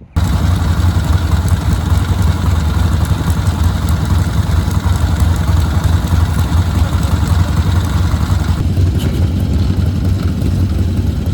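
Motorcycle engine running loud and steady with a deep low rumble; its upper tones drop away somewhat about eight and a half seconds in.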